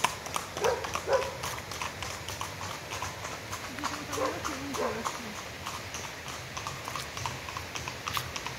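Footsteps clicking irregularly along a path, over the steady rush of a waterfall.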